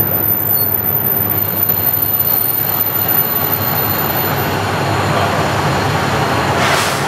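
KiHa 40 diesel railcar under way: steady engine drone and the running noise of wheels on rail, with a brief hiss near the end.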